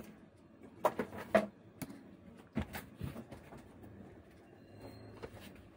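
Quiet workbench handling: a few light clicks and taps as multimeter probes are set on a graphics card's circuit board, with a short pitched sound about a second in.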